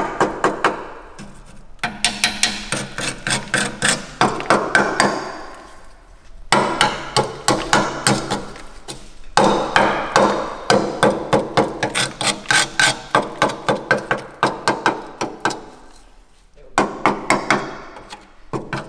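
A steel screwdriver jabbed and knocked repeatedly against the rust-covered steel tubes of a Noble's spaceframe chassis, probing the corroded tubing. Sharp metallic knocks come about four a second, in runs of a few seconds broken by short pauses.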